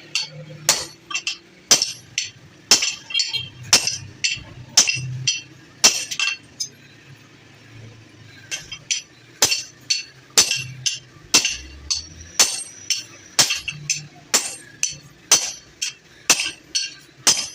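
Hammer blows on metal at an anvil, each strike ringing sharply, about two a second, with a short pause about seven seconds in.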